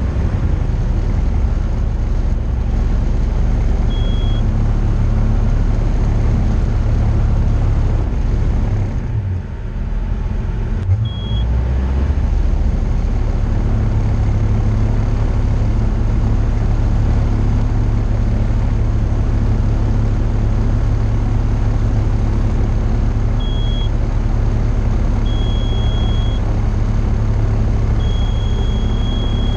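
Tecnam P2002JF's Rotax 912 engine and propeller running steadily at takeoff power, heard inside the cockpit through the takeoff roll and lift-off. About nine seconds in the engine note drops and wavers for two or three seconds, then steadies again. Short high beeps sound a few times, longer ones near the end.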